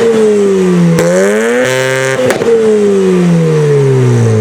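A car engine being free-revved: the revs fall back, climb again about a second in, then die away slowly, with a sharp crack near the top of the rev.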